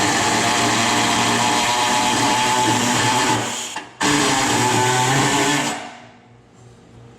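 A handheld power tool motor running at speed with a steady whine. It stops briefly about three and a half seconds in, starts again half a second later, then winds down and stops near the end.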